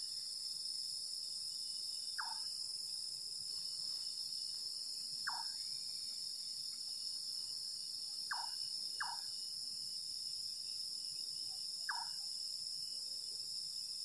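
Night insects, crickets among them, chirring in a steady high chorus. Over it a bird gives a short falling call five times, about every three seconds, two of them close together near the middle; the speaker takes the caller for a nightjar (burung cabak).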